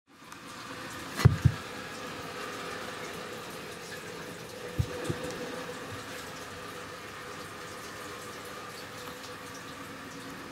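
Steady indoor background hiss with a faint hum. It is broken by two pairs of dull, low thumps, one pair about a second in and the other near five seconds.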